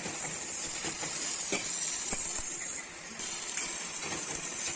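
MIG welding arc from a Warpp INMIG250IH welder running on sheet metal, a steady hiss with crackles. The arc stops briefly about three seconds in and strikes again.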